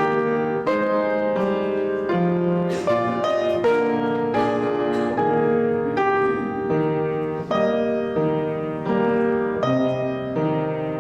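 Piano playing slow, sustained chords, a new chord struck about every three-quarters of a second.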